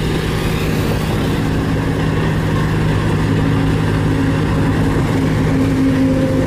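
Diesel engines of single-drum road rollers (compactors) running steadily as the machines roll over a gravel base, a continuous even drone with a low rumble.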